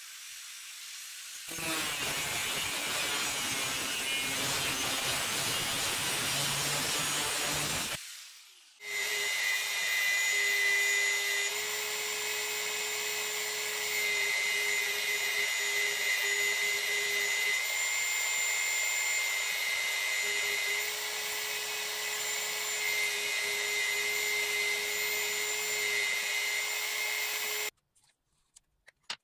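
An abrasive wheel grinding steel with a loud, rough noise for about six seconds, then, after a short break, a bench belt sander running with a steady whine and hiss as a small steel blade held in locking pliers is ground against the belt. The sander stops suddenly near the end, and a few light clicks follow.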